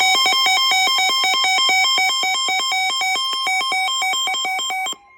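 Weather radio alert tones for a tornado warning: a loud electronic alarm warbling rapidly between two pitches, about eight flips a second, over a steady warning tone near 1 kHz. The warble cuts off suddenly about five seconds in, and the steady tone carries on faintly.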